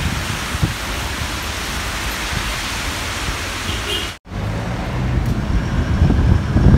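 Steady rain hiss with cars passing on a wet road. After a brief dropout about four seconds in, it gives way to a duller hiss of street traffic with engine rumble.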